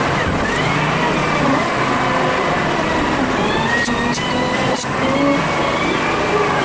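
Volvo BM 4300 wheel loader's diesel engine and hydraulics working while leveling dirt, played back at five times speed, so the machine's note is pitched up with quick rising and falling whines. A few sharp knocks sound about four to five seconds in.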